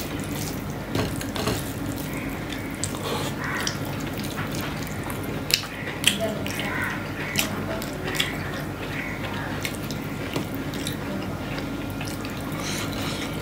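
Close-up eating sounds: fingers squishing and mixing cooked rice and vegetable curry on a steel plate, and wet chewing and lip smacks, with many short sharp clicks. A steady low hum runs underneath.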